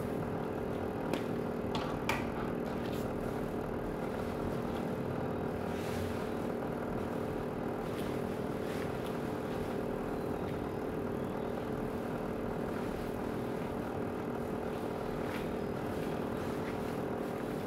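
Tefal upright clothes steamer running: a steady, constant hum with a haze of noise, and a few faint clicks from the shirt and hanger being handled in the first seconds.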